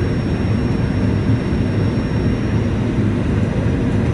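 Steady, loud rumble of a Boeing 737-800 airliner in motion: its CFM56 engines and rushing air blend into a deep, even roar. A faint high whine fades out about two and a half seconds in.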